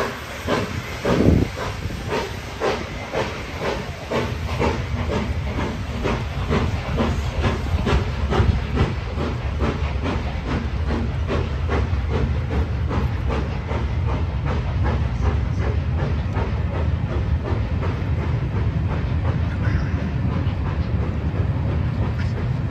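Exhaust beats of 7029 Clun Castle, a four-cylinder GWR Castle-class steam locomotive, quickening as it pulls away from a standing start. Under them is the low rumble of its coaches rolling close by, which grows and takes over as the beats blur together.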